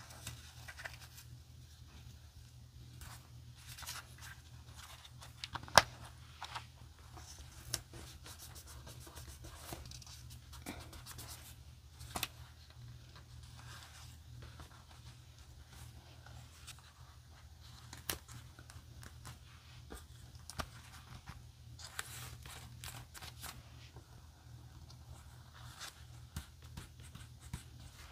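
Paper cut-outs being handled and pressed onto a journal page: soft paper rustling and crinkling with scattered light taps and clicks, the sharpest one about six seconds in, over a faint steady low hum.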